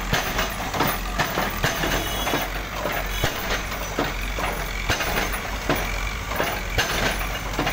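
CAT backhoe loader's diesel engine running while its bucket breaks down a brick wall, with irregular knocks and clatter of brick and debris.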